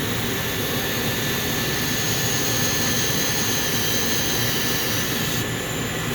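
Condensing gas furnace running: a steady rush of air and burner noise, with a higher hiss over it that cuts off near the end.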